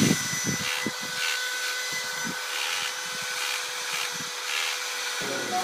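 Power engraving tool running steadily against a granite slab as characters are cut into the stone: a continuous hissing, grinding noise with a few steady whining tones, and a low hum that stops near the end.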